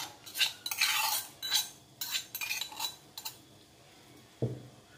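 Metal scraping and clinking inside a brass mortar as pounded roasted peppers are scraped out into a dish: a quick series of scrapes over the first three seconds, then quieter.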